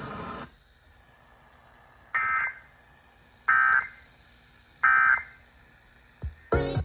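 Emergency Alert System end-of-message data bursts: three short, identical, warbling digital tone bursts about 1.4 s apart, marking the end of the weather warning broadcast. A brief, louder sound cuts in just before the end.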